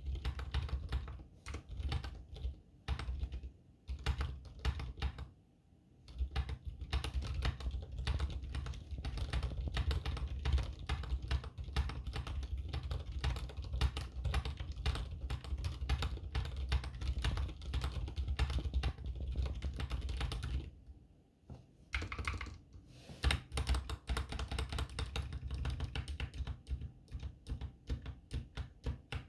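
Continuous typing on a GK61 60% mechanical keyboard fitted with Keebwerk Tacit silent switches: rapid, muffled key presses with a deep thud on each stroke. The typing stops briefly twice, about five seconds in and about two-thirds of the way through.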